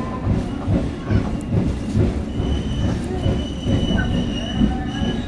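Passenger train running on the rails: a steady rumble with regular knocks of the wheels over rail joints, about two a second. A thin high wheel squeal comes in about two seconds in.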